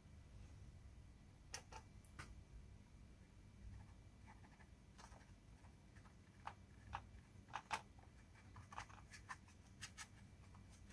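Near silence broken by faint, irregular taps and clicks of a paintbrush dabbing paint onto watercolour paper.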